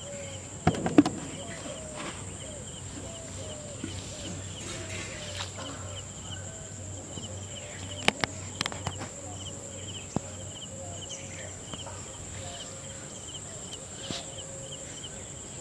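Steady high-pitched insect drone with a fast, rhythmic chirping over it and a string of short calls lower down. A loud brief knock comes about a second in, and a few sharp clicks around eight seconds.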